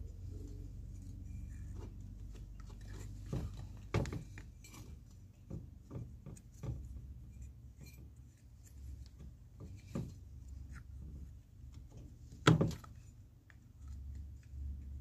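Scattered light knocks and clicks of a metal valve housing and a rubber seal being handled and pressed into place by hand, with one sharper knock about twelve and a half seconds in, over a steady low hum.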